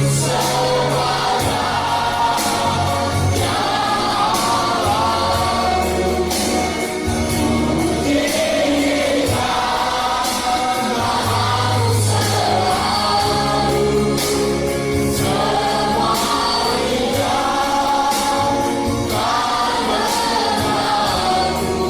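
A choir of voices singing a gospel song in phrases a few seconds long, over instrumental accompaniment with sustained bass notes.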